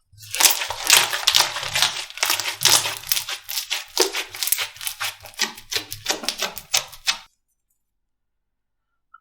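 Slime being squeezed and poked by hand, giving a dense, rapid run of crackling clicks and pops that stops suddenly about seven seconds in.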